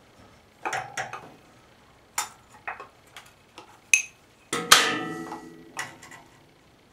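A series of sharp clicks and clinks from pliers and a ceramic mug handled against the metal fuel line and frame of a small-engine pressure washer. The loudest, a little past halfway, is a ringing clink.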